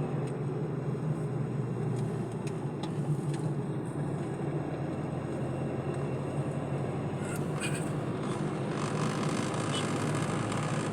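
Steady engine and road noise inside a car's cabin as it climbs a winding ghat road uphill, with a few light clicks.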